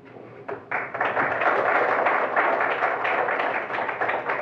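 Audience applauding, beginning about a second in and thinning out near the end.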